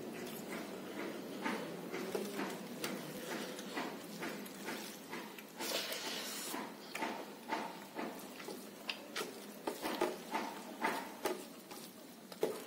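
Close-up eating by hand: irregular wet chewing and lip-smacking clicks as rice and pork curry are eaten, with fingers working the rice against a steel plate. There is a brief breathy hiss about six seconds in.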